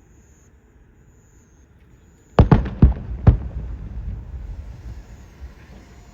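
Aerial firework shells bursting: a quick run of about five sharp bangs some two and a half seconds in, within about a second, followed by a low rumbling echo that fades away.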